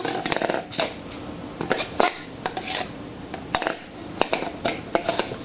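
Light clinks, taps and knocks of metal parts being handled while the boot and other pieces are moved from an old rear shock absorber onto the new one, at an irregular pace.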